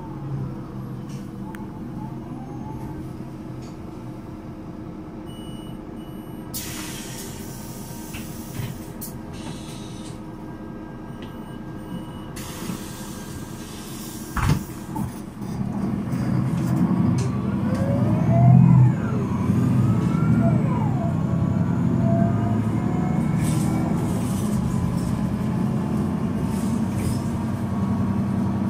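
Solaris Urbino 12 III city bus standing with its DAF 9.2-litre six-cylinder turbo diesel idling, the diesel clattering at low revs. Two spells of hissing come around 7 and 13 seconds in, then a sharp knock, after which the engine runs louder.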